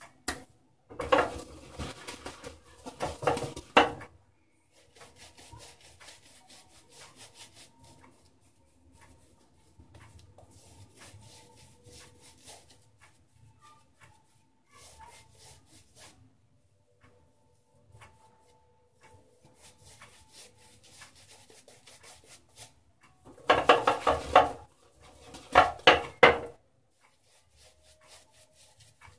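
Shaving brush working shave-soap lather, a wet scratchy rubbing in quick strokes, with two louder, brisker stretches of brushing, one about a second in and one near the end.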